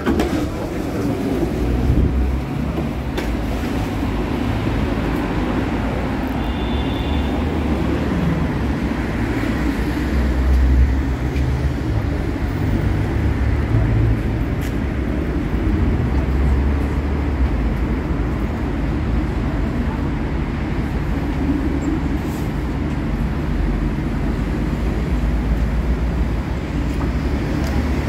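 Steady low rumble of a light-rail tram standing at a stop with its doors open, mixed with street noise. A brief high-pitched tone sounds about seven seconds in.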